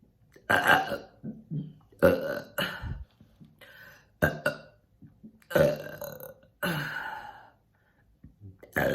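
A woman burping again and again: a series of about five or six loud, deep burps, each under a second long, brought up from swallowed air.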